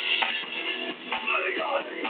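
Amateur rock band playing live: drum kit with guitars and bass. The recording is thin, with almost no low end and no top.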